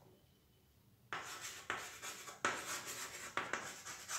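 Chalk writing on a chalkboard. After about a second of quiet comes a run of several chalk strokes as a word is written.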